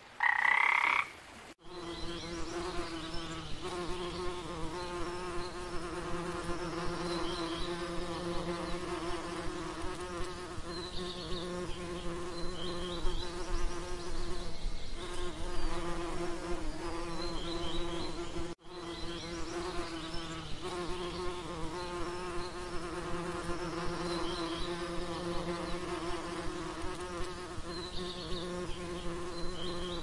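A frog croaks briefly in the first second and a half. Then bees buzz around flowers for the rest of the time: a steady, droning hum, with faint high chirps above it.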